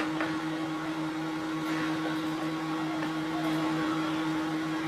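Steady low electrical or mechanical hum on two pitches, with faint hiss: background room noise.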